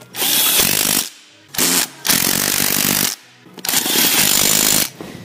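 Cordless Milwaukee impact driver with a socket, hammering bolts tight in four bursts of up to about a second each, with short pauses between.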